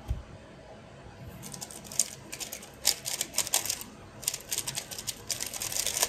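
MoYu RS3 M ball-core plastic speedcube turned rapidly in a speedsolve: fast runs of sharp clicking and clacking as the layers snap round, starting about a second and a half in. A soft thump right at the start.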